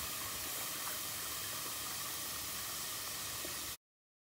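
Steady hiss of cold milk being poured into a pot of hot flour-and-oil roux, the milk running over a wooden spoon. It cuts off abruptly to silence a little under four seconds in.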